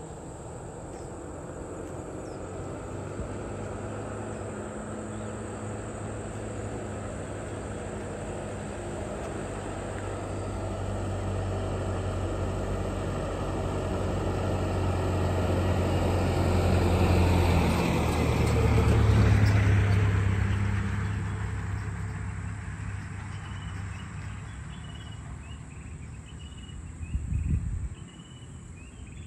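Small truck's engine approaching and passing by: it grows louder to a peak about two-thirds of the way through, drops in pitch as it passes, then fades away. A short low rumble comes near the end.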